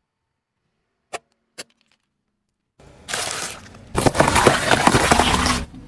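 Two short sharp cracks over near silence about a second in. From about three seconds in, a car tyre rolls onto bell peppers and crushes them: loud crunching and crackling that cuts off just before the end.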